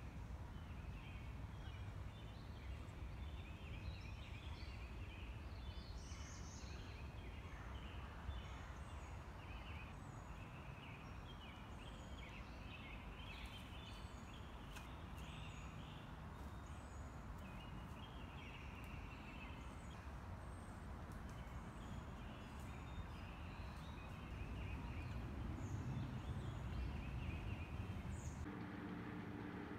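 Wild birds singing and calling, many short chirps one after another, over a low, steady background hiss. A few faint clicks sound partway through.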